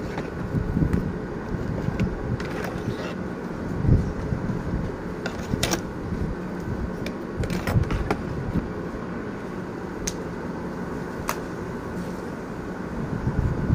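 Corded electric hair clipper running with a steady buzz. Scattered knocks and rubbing come from the phone being handled close to the microphone.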